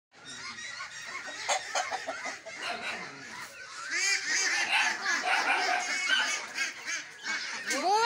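A flock of domestic ducks quacking, many short calls overlapping, growing louder and busier about halfway through.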